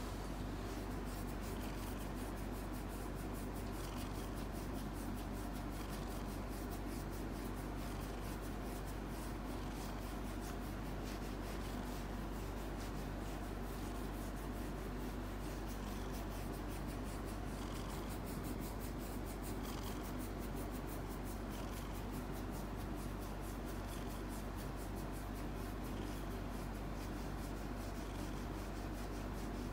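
Korat cat purring steadily while its chin and cheeks are scratched, with the soft rasp of fingers rubbing through its fur.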